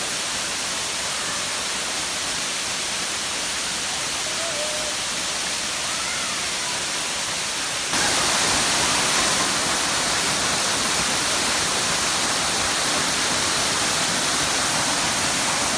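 Waterfall rushing steadily, with a sudden jump to a louder, brighter rush about halfway through.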